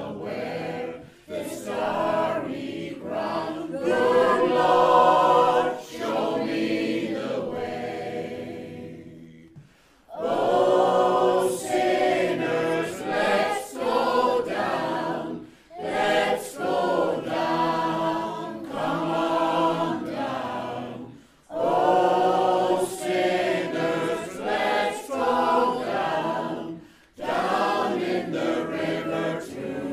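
A choir singing in long phrases with brief pauses between them.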